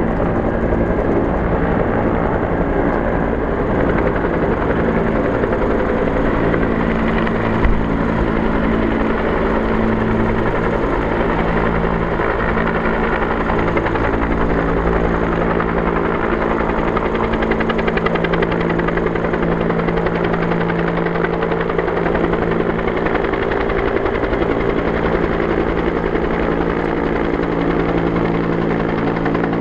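Bell AH-1S Cobra attack helicopter running: its two-bladed main rotor beats steadily over a continuous engine tone, with no let-up.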